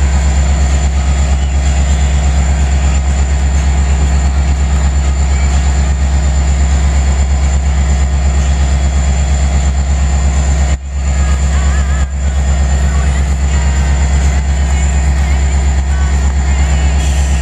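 Metra diesel locomotive idling close by at a station platform: a loud, steady low engine rumble with a faint high whine over it. The sound dips out briefly twice about eleven seconds in.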